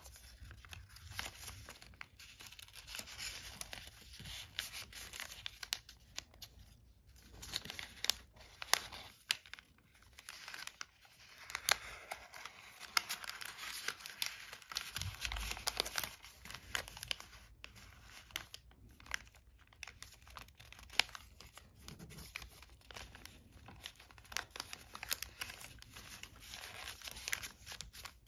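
Origami paper rustling and crinkling as hands slot folded units of a paper star into one another and press them flat. It comes as irregular rustles with many small sharp ticks.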